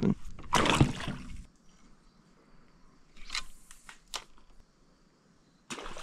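A short splash of water as a released cod is dropped back over the side of the boat, cutting off after about a second and a half, then quiet with a few faint clicks.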